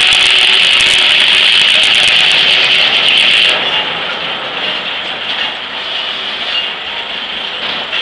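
Large circular sawmill blade ripping through an ash log: a loud, steady cutting noise that ends about three and a half seconds in as the blade leaves the cut. The blade then spins on freely, quieter, with a faint high whine.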